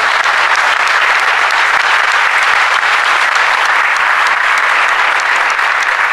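Audience applauding: many hands clapping at once in a steady, loud ovation.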